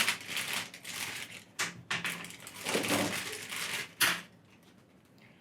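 Handling noise as headphone accessories are taken out of their packaging compartment: rustling with a few sharp clicks, dying away about four seconds in.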